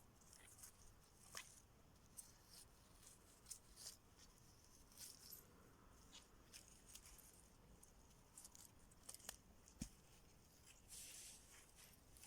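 Faint, scattered scratches and clicks of hand work on the parts of a dismantled refrigerator compressor motor.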